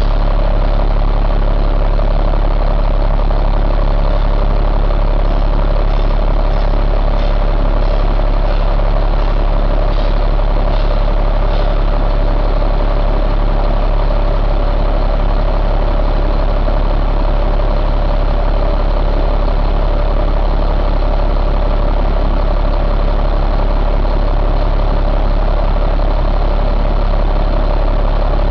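Caterpillar 3126 inline-six diesel truck engine idling steadily, heard up close in the open engine bay, with a constant tone riding over the low running sound.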